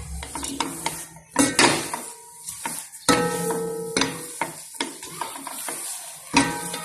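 Spoon scraping and clinking in a bowl or pot while homemade play dough is mixed, a run of irregular clicks and scrapes.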